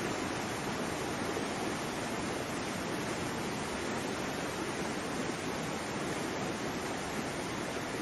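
Waterfall rushing steadily: an even, unbroken hiss of falling water.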